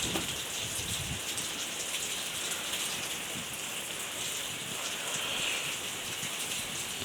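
Hurricane rain falling steadily, an even hiss of rain on surfaces.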